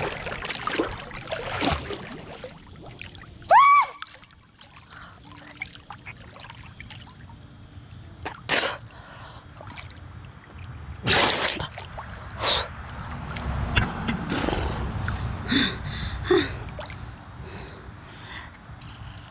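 Water splashing and sloshing around a swimmer, with short gasping breaths as her face comes up out of the pool. A brief high squeak about three and a half seconds in is the loudest sound.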